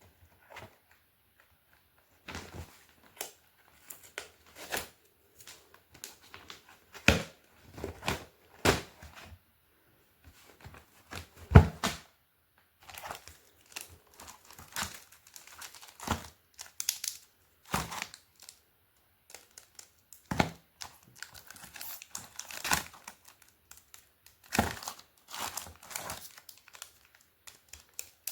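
Crinkling and tearing of chocolate packaging being opened by hand: irregular crackles and rustles starting about two seconds in, some sharp and loud.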